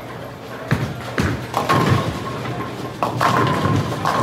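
Ten-pin bowling alley in play: bowling balls rumbling down the lanes and a series of sharp knocks and pin crashes, about five in all.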